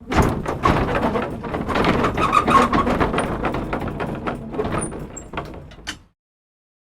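Antique wooden wagon cart in motion: its wooden body rattling and clunking in a dense run of knocks, with creaking groans. It eases off over the last few seconds and stops abruptly about six seconds in.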